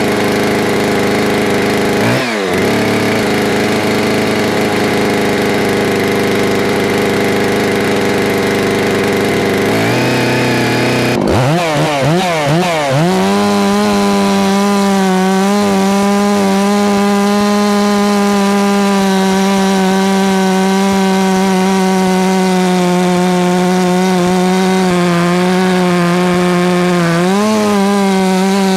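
New FarmMac F 669 gasoline chainsaw, on its break-in fuel mix, running steadily at a fast idle with a brief blip about two seconds in. Around ten seconds in it is revved up and down several times, then held at full throttle, cutting into a pecan log; the pitch sags slightly under load and picks back up near the end.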